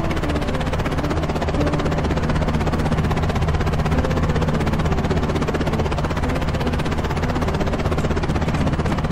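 Layered cartoon vehicle sound effects: a steady low engine drone with a fast flutter running through it, level throughout.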